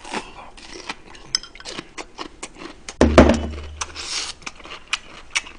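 Close-miked eating: scattered clicks of a utensil against a ceramic bowl and chewing mouth noises. About three seconds in comes the loudest moment, a low thud with a short vocal grunt, followed by a brief hissing breath.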